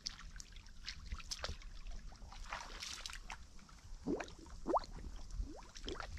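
Shallow muddy water sloshing and gurgling, with small splashes and several quick rising bubbly bloops, most of them about four to five seconds in.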